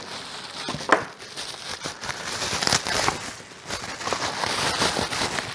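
Packaging being handled and unwrapped as parts come out of the box: irregular crinkling and rustling, with a sharp knock about a second in and denser rustling in the second half.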